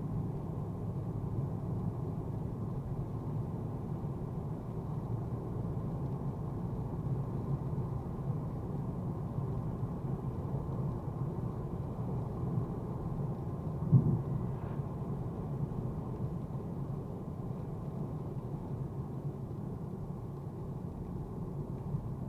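Steady low rumble of a Mercedes-AMG A35's turbocharged four-cylinder engine and tyre noise while driving, with one short thump about fourteen seconds in.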